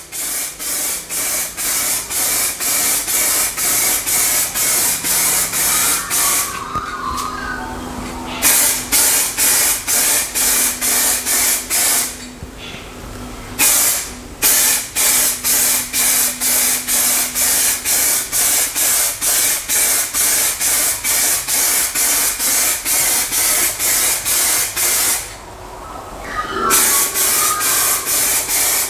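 Aerosol spray can of colour shift pearl paint hissing as a coat goes onto a rifle stock, pulsing evenly about three times a second. It stops briefly three times.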